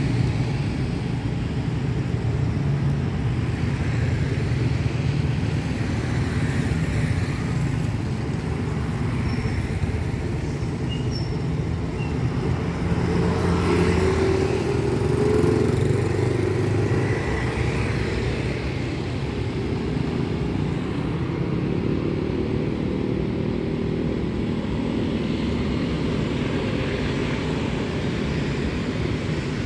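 Street traffic at a junction, mostly small motorcycles and motor scooters running and passing, a steady hum of engines and tyres that grows louder for a few seconds about halfway through.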